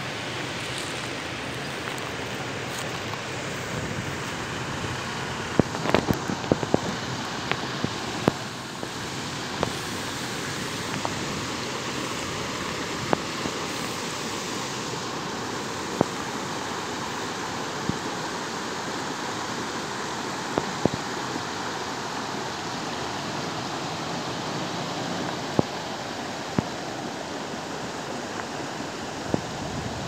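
River water rushing over rocky rapids and small cascades: a steady hiss of flowing water, with scattered short sharp clicks and knocks.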